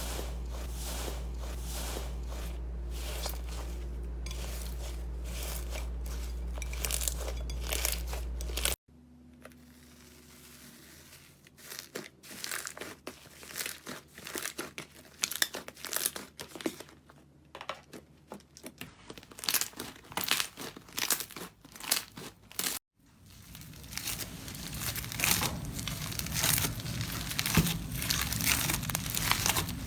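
Slime being squeezed, poked and stretched by hand, giving dense crinkly crackling and tearing sounds, in three separate clips with abrupt cuts about 9 and 23 seconds in. A steady low hum runs under the first clip, and the middle clip is quieter and sparser.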